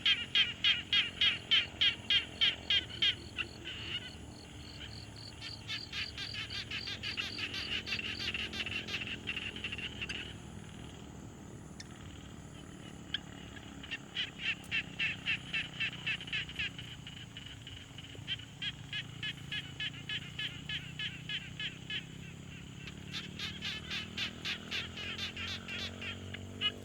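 Pond frogs calling in a chorus: trains of rapid, evenly spaced pulsed croaks at about four a second, in bursts a few seconds long with short pauses between them.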